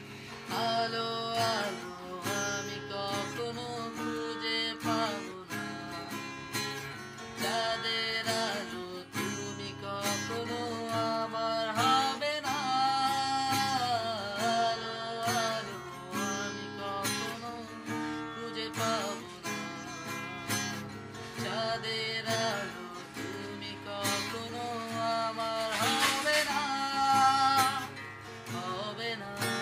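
A man sings a song while strumming a cutaway acoustic guitar, the voice carried in phrases over steady strummed chords.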